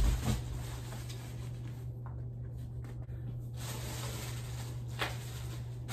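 Handling noise: a low thump right at the start and a softer one just after, then a steady low hum under quiet room noise, with a faint tap about five seconds in.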